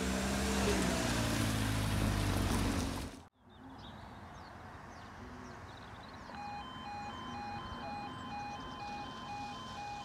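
A car driving over the level crossing, its engine note falling, cut off abruptly after about three seconds. About six seconds in, a level crossing's two-tone warning alarm starts, alternating steadily about twice a second as the crossing lights come on.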